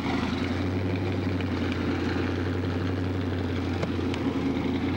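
Car engine idling steadily with an even low hum.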